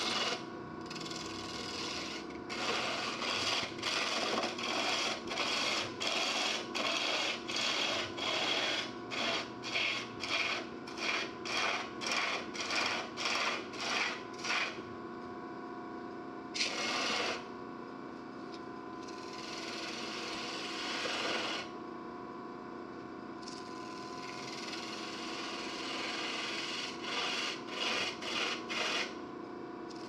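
A wood lathe runs with a steady hum while a turning tool cuts the spinning natural-edged wood of a birdhouse top. The cutting comes as a rough scraping in repeated strokes, about one a second at first and growing shorter and quicker. After a pause there are a few longer single cuts and a longer run of cutting near the end.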